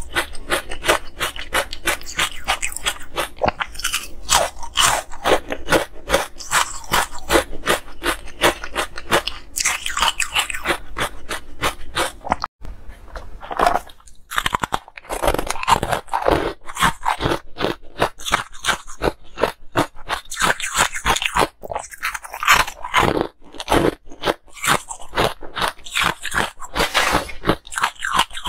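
Ice being bitten and chewed close to the microphone: dense, rapid crunching. A brief break about twelve seconds in, then the crunching resumes.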